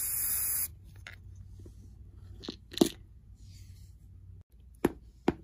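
A short burst of noise at the start, then a few light clicks and one sharper knock nearly three seconds in, as a small plastic pill bottle tips over onto a hardcover book.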